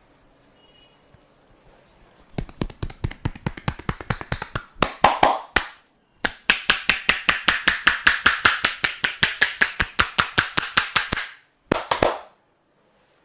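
Percussive massage strokes: the masseur's hands rapidly slapping and tapping on the body at about six strokes a second. There are two long runs with a short break between them, then a brief burst near the end.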